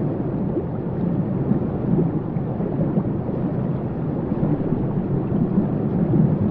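Waterfall rushing in a steady, deep, even roar of falling water.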